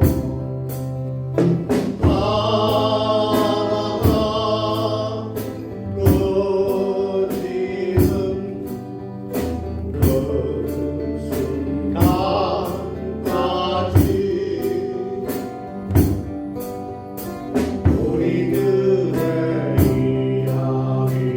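Live band performance of a slow Korean folk-pop song: a group of voices singing together over a steady bass and a regular drum beat.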